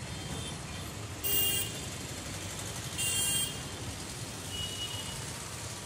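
Steady road traffic rumble, cut by two short, bright vehicle horn honks about two seconds apart.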